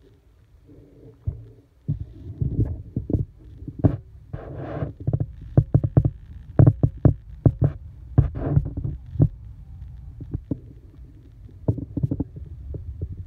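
Wind buffeting the microphone: a low rumble with a rapid, irregular series of short thumps and knocks, heaviest through the middle.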